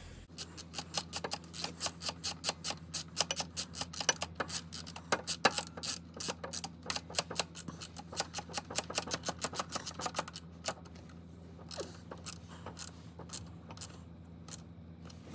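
Hand ratchet clicking rapidly, about five clicks a second, as it turns a 5 mm Allen bit on a motorcycle center stand's pivot bolt; the clicking thins out to scattered clicks about ten seconds in.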